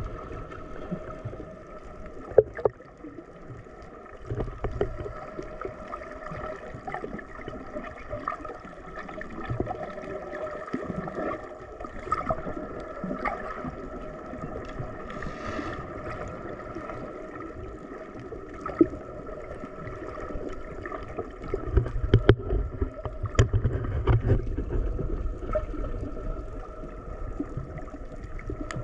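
Underwater sound picked up by the camera: a steady droning hum with a few fixed tones, scattered sharp clicks, and bursts of low rumble about five seconds in and again near the end.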